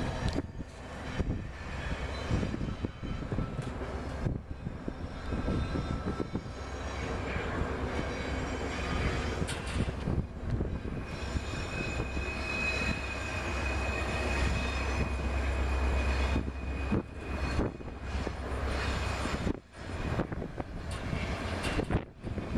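Wind buffeting the microphone in gusts over the distant running of a freight train's diesel locomotives, with a low rumble swelling toward the middle. A thin high steady tone sounds for a few seconds in the middle.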